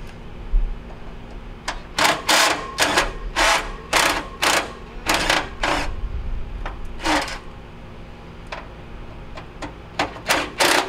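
Cordless driver spinning sheet-metal screws out of an air conditioner's access panel in short bursts: a quick run of them for several seconds, then a few more near the end.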